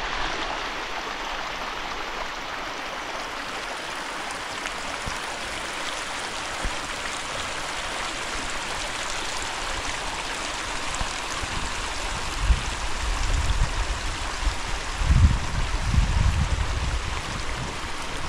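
Steady rush of water, an even hiss that does not let up, with bursts of low rumbling coming and going in the last third.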